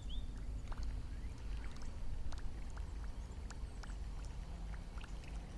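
Water lapping around a small fishing boat over a steady low rumble, with scattered faint ticks. A bird's short, repeated chirps end just at the start.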